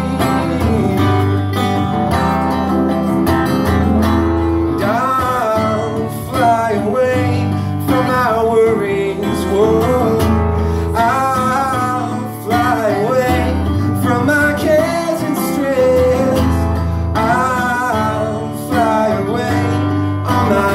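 Live music from two guitars, strummed and picked, with a bending melody line carried over the chords.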